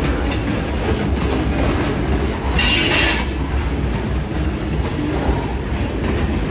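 Freight train's covered hopper cars rolling past on jointed rail over freshly replaced ties: a steady rumble and rattle of wheels on rail, with a brief burst of high-pitched wheel noise about two and a half seconds in.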